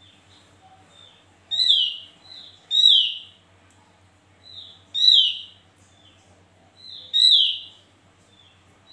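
Caged Javan grey-throated white-eye (cucak jempol, opior jawa) calling: four loud, sharp notes that fall in pitch, spaced one to two seconds apart, each with a softer short note close by.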